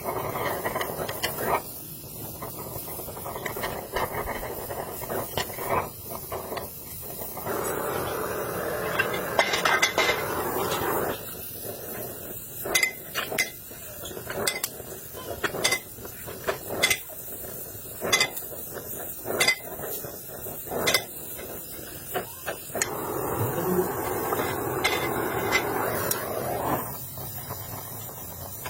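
Metal clinking and knocking, with a fast run of sharp knocks in the middle, between stretches of steady hissing noise.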